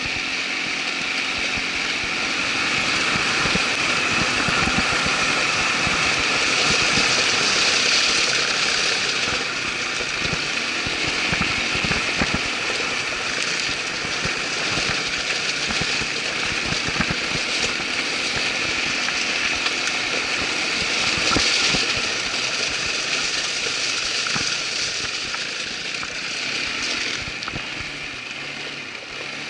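Irbis ATV 200 quad bike running as it is ridden over a rough trail. The engine note swells and eases a little, with many short knocks and rattles from the bumpy ground.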